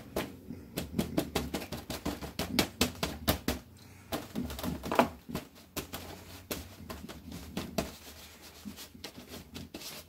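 A wadded paper towel patting and rubbing wet acrylic paint on watercolor paper: a quick, irregular run of soft dabs and taps, several a second.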